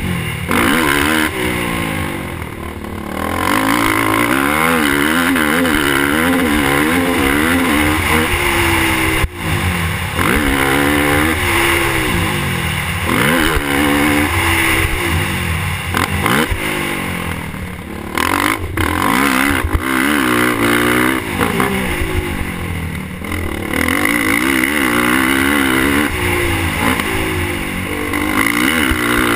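Suzuki LTR450 quad's single-cylinder four-stroke engine revving up and down over and over as it is ridden around a dirt track, the throttle easing off briefly several times. A single sharp knock comes about nine seconds in.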